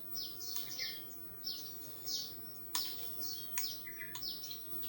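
A small bird chirping over and over in a steady run of short, high, falling chirps, with a few sharp clicks in between.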